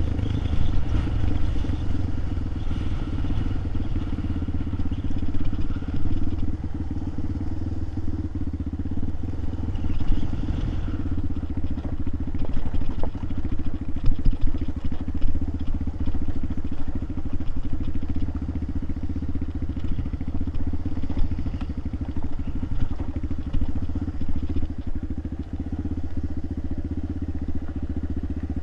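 Motorcycle engine running steadily at an even speed, with some clattering.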